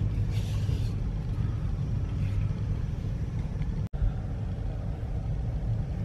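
Car engine idling, heard from inside the cabin as a steady low rumble. The sound cuts out for an instant about four seconds in.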